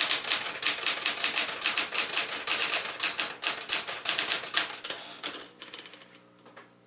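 1973 Smith-Corona Sterling manual portable typewriter being typed on at a brisk pace, several sharp key strikes a second. The typing slows and stops about five and a half seconds in.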